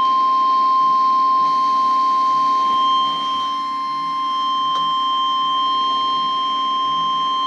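Weatheradio Canada's 1050 Hz warning alarm tone: one loud, steady electronic tone that signals a weather warning is about to be broadcast.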